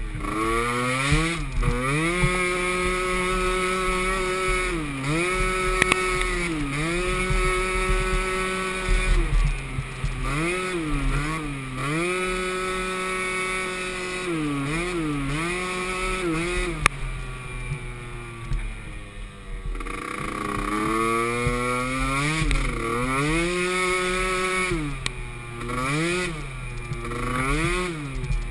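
Small youth racing ATV engine revving, its pitch climbing and holding high, then dropping off briefly again and again as the throttle is worked on and off. It fades for a few seconds past the middle, then comes back up.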